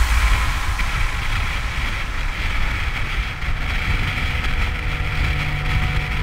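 Motorcycle engine running steadily while riding, with road and wind noise on the camera's microphone.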